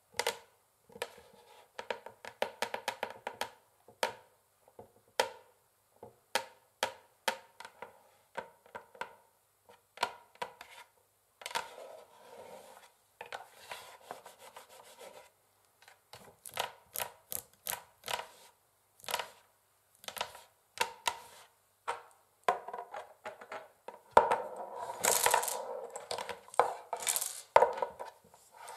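Long fingernails tapping on a wooden chessboard in quick, irregular runs of sharp clicks, broken by stretches of scratching. The loudest, densest scratching and tapping comes near the end.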